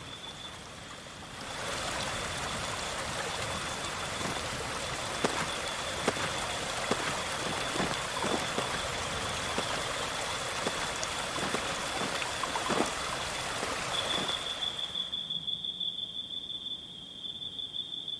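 Stream water rushing over rocks, with a few sharp knocks or splashes in the middle, over a steady high drone of insects. The water fades out about three-quarters of the way through, leaving the insects pulsing rapidly.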